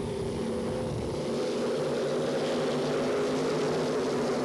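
Pack of IMCA stock cars' V8 engines running at racing speed, several engine notes layered into a steady drone that grows a little louder about a second in.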